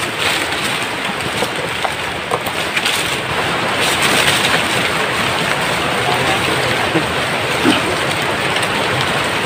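Steady rustling and crunching of brush and dry leaves as someone pushes through forest undergrowth, with a few small snaps.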